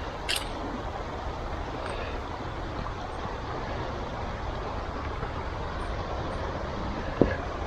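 Steady outdoor rushing noise, with a short click just after the start and a sharper knock near the end.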